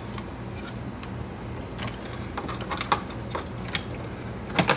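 Plastic cover being fitted onto a 12 V DC fuse box: scattered light clicks and taps, ending in a louder click near the end, over a low steady hum.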